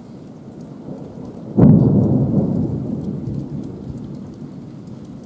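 A sudden clap of thunder about one and a half seconds in, its low rumble dying away over the next few seconds, over the steady hiss of heavy rain.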